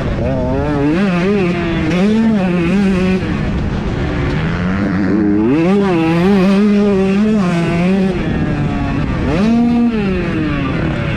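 125cc two-stroke motocross bike engine revving hard, its pitch rising and falling every half second or so as the rider works the throttle. Near the end it climbs into one longer rev and drops away.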